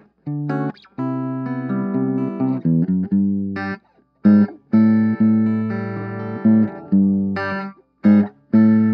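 Clean electric guitar through an Orange Crush 20 combo amp on its clean channel, EQ set flat, played on a Telecaster's bridge pickup. It plays a sequence of ringing chords and notes, each let sustain and then cut short, with brief silent breaks between them.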